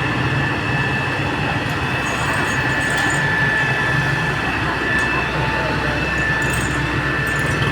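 Heavy excavator's diesel engine running steadily with a low rumble and a steady high-pitched whine over it.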